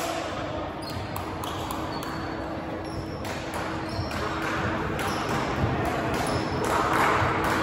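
Volleyball match sounds on a gym court: scattered thumps of the ball and short high sneaker squeaks on the floor, over a low murmur of voices.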